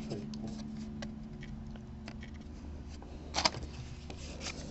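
Baseball trading cards being thumbed through by hand: faint ticks of card edges and a short sliding rustle about three and a half seconds in, over a steady low hum.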